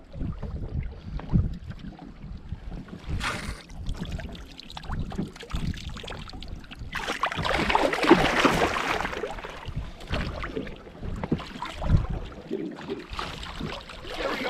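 Wind buffeting the microphone and lake water lapping at the boat, with a loud burst of splashing from about halfway through to near two-thirds as a hooked fish thrashes at the surface beside the boat.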